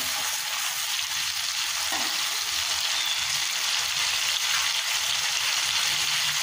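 Steady sizzling of tomatoes in hot oil with salt-and-turmeric water just added, in a metal kadai. A spatula stirs at the start.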